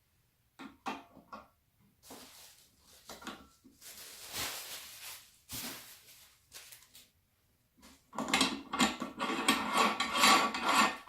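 Meat grinder parts being handled and fitted together: scattered clicks and knocks, then stretches of rubbing and scraping, growing into a denser, louder clatter over the last three seconds.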